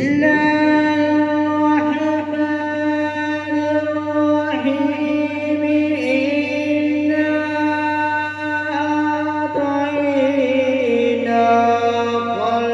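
A man reciting the Quran in the melodic chanted style (tilawat), drawing out long held, ornamented notes that shift in pitch every few seconds.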